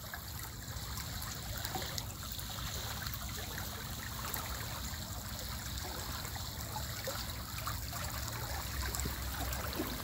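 Water being let into a pond, flowing in steadily and churning the surface at the inlet.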